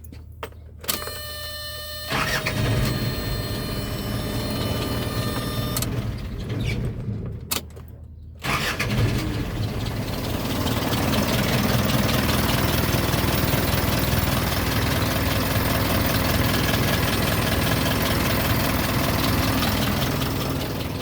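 A click and a brief tone, then a few seconds of mechanical noise. About eight seconds in, the Isuzu NPR truck's engine starts and settles into a steady idle.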